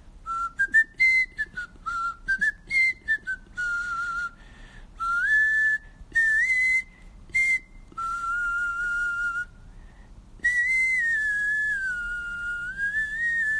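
A man whistling in an unusual way, without pursed lips: a single clear, high tone that glides up and down in a wandering tune. It comes in short phrases with brief pauses between, and the longest phrase is near the end.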